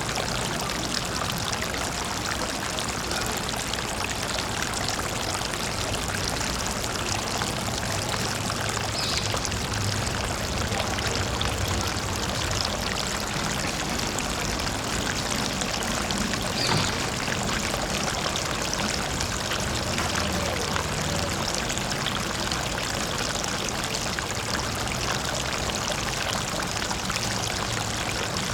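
Small waterfall on a brook: water pouring and splashing steadily.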